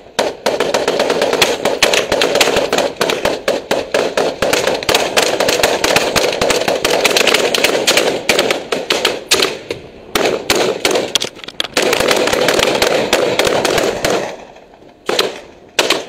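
Rapid rifle fire, shot after shot in quick succession, with a couple of short breaks about ten seconds in. Near the end the firing stops briefly, then a few more single shots follow.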